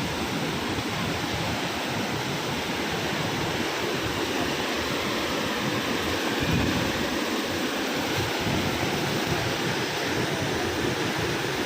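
Waterfall swollen by a flash flood: a steady, loud rush of heavy water.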